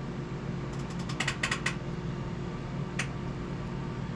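A quick run of light clicks and taps from small plastic parts, the servo and its mounting blocks being handled, with one more click about three seconds in, over a steady low hum.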